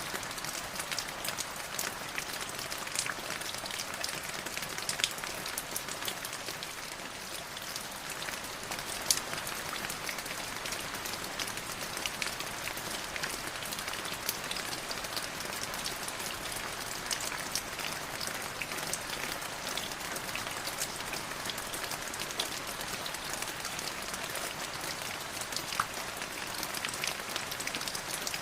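Light rain falling steadily, a drizzle of many small drops pattering on a surface, with a few louder single drops standing out now and then.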